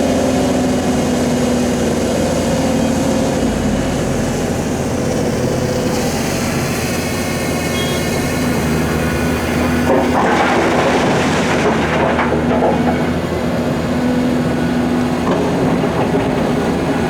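Large diesel engine of heavy quarry earthmoving machinery running steadily under load, with a harsh, noisy surge lasting about two seconds around ten seconds in.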